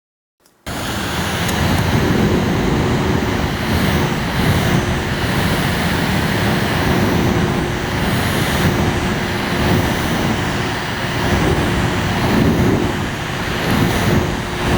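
A small fan or blower starting up abruptly about half a second in, then running with a steady rush of air over a constant low hum.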